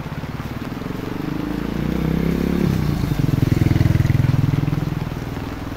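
A motor vehicle passing close by: its rapidly pulsing engine grows louder, peaks about three and a half to four seconds in, and fades away, the engine note dropping as it goes past.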